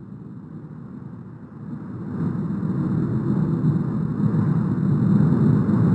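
Roar of the erupting La Palma volcano's vent as it throws up a lava fountain and ash column: a steady, deep rushing rumble that is softer at first and swells about two seconds in.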